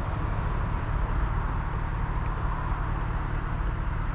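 2010 BMW 650i's naturally aspirated 4.8-litre V8 running steadily under light load, with tyre and road noise while driving.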